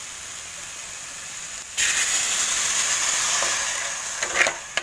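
Grated coconut and sugar sizzling quietly in a hot steel pan. About two seconds in, water is poured onto the hot sugar and hisses loudly and suddenly for about two seconds, then fades. Near the end a spatula scrapes and taps against the pan.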